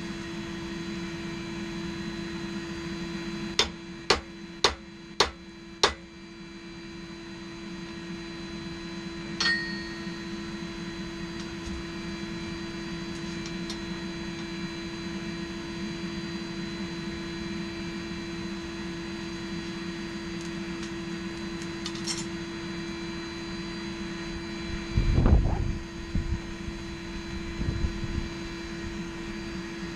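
A blacksmith's hammer striking the axe head on the anvil: five quick blows about four seconds in, then a single ringing metal strike near ten seconds, over a steady hum. Near the end come a few low, heavy thuds, the loudest sounds here.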